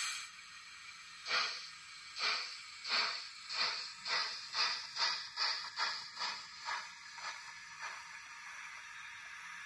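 Steam-exhaust chuffs from the DCC sound decoder in an OO-gauge Kerr Stuart 'Victory' tank locomotive model as it pulls away and runs. About a dozen chuffs quicken from under one a second to two or three a second, then grow softer and fade out about eight seconds in as the locomotive slows.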